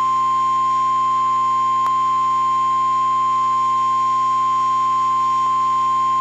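NOAA Weather Radio's 1050 Hz warning alarm tone, one steady unbroken tone sent ahead of a severe thunderstorm warning to signal the alert and switch on weather radio receivers. A faint click comes about two seconds in.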